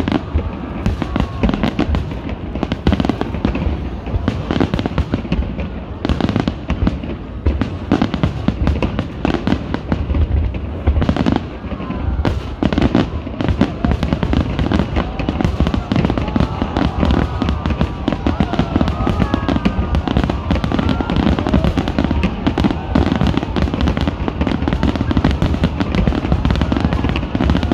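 A dense barrage of aerial fireworks shells bursting in rapid succession as a show's finale, a continuous mix of deep booms and crackling that never lets up.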